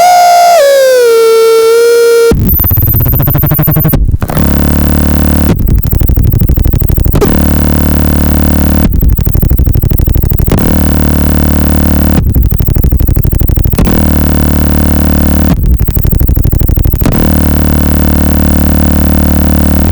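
Circuit-bent glitch pedal (an EQD Life clone and a DOD Carcosa clone wired in a feedback loop) self-oscillating. A pitched squeal first glides down and settles. About two seconds in it breaks abruptly into a harsh buzzing noise over a low drone, which flips back and forth roughly every second and a half to two seconds between a rattling, hissy glitch and a steadier drone.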